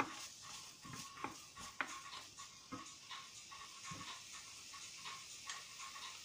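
A wooden spoon stirring diced carrot in a nonstick frying pan, scraping and knocking against the pan several times in the first four seconds. Under it and afterwards comes a faint steady sizzle of the carrot frying.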